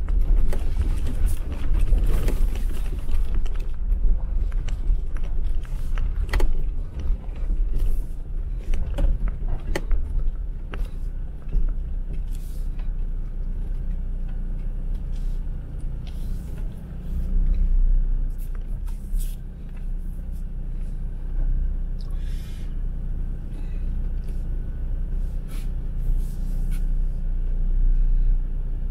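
Jeep Wrangler driving on a snow-covered off-road track: a steady low rumble of engine and tyres, with scattered clicks and knocks that are busiest in the first ten seconds.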